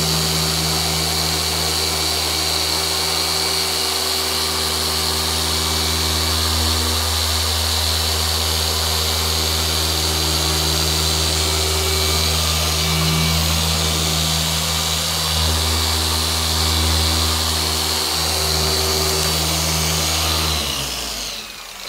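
Rupes long-throw dual-action polisher with a yellow foam pad running steadily under firm pressure on painted bodywork, a low hum with a high whine; it slows over a body curve but keeps spinning without stalling. It winds down and stops near the end.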